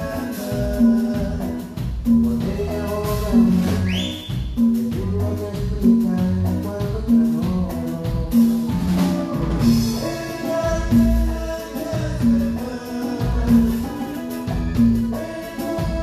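Live band playing Latin American dance music with a drum kit, keeping a steady, even beat, with a brief rising glide about four seconds in.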